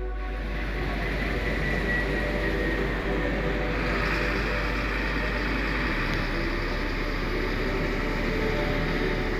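Steady engine and road noise of a moving vehicle driving along a paved road, heard from on board.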